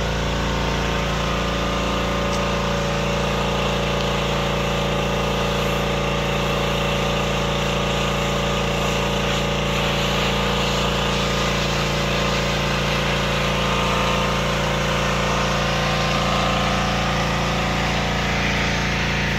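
Pressure washer's engine running steadily at a constant speed, with a hiss of spray under the drone.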